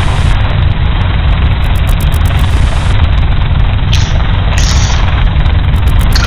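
Helicopter hovering close by, a loud steady rumble of engine and rotor with no letup.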